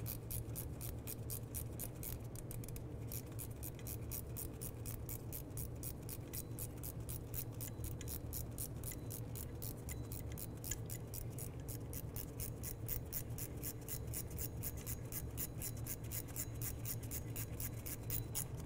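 Ratcheting wrench clicking steadily as it runs an idler pulley bolt down, a fast, even train of clicks that stops near the end.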